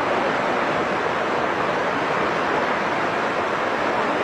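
Muddy river in flash flood: fast-moving floodwater rushing past the bank, a steady, even noise with no breaks.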